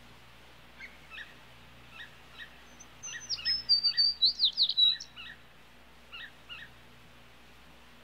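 Sparrow chirping: a few faint short chirps, then about two seconds of louder, quick high whistled notes that sweep up and down around the middle, then a few faint chirps again.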